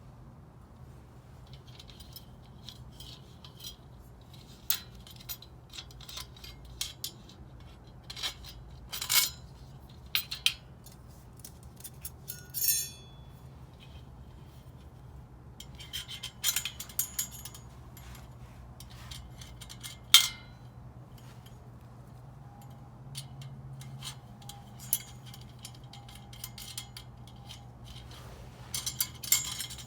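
Parts of a dish drying rack being handled and fitted together: scattered light clinks and knocks in irregular groups, with a brief scrape near the middle and one sharper knock later, over a low steady hum.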